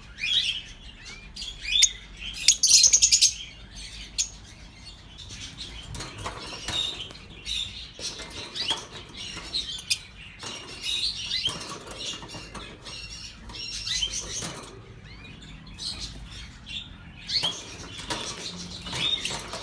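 Masked lovebirds chirping and chattering in short, repeated high calls, with a loud flurry of sound about three seconds in.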